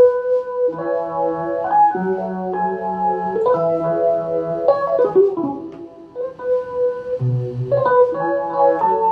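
Synthesizer in an organ voice playing held jazz chords that change about once a second, with a low bass line beneath and no drums.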